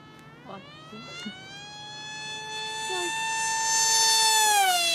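Electric Funjet RC jet's motor and propeller whining at full throttle during a high-speed pass. The whine rises in pitch, then holds and grows louder, then drops in pitch at its loudest point near the end as the plane goes by.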